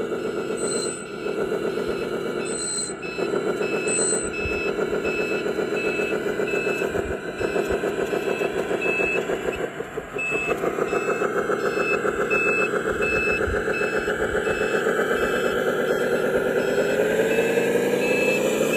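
Heavy truck engine running while a reversing alarm beeps steadily, about one and a half beeps a second. The engine note rises near the end.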